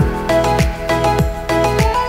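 Background music with a steady beat: a deep kick drum with a falling pitch about every 0.6 seconds under sustained chords.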